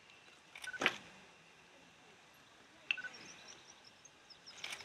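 A filled sack thuds down onto a platform barrow about a second in. Later a small bird chirps a quick run of short high notes.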